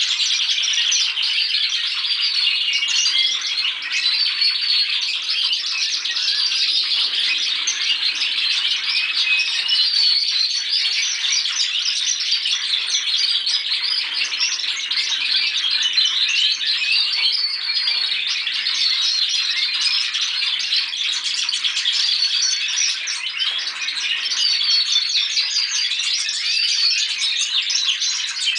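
Many young Spanish timbrado canaries singing at once, practicing their song: a dense, unbroken chorus of high trills and chirps that holds at a steady level throughout.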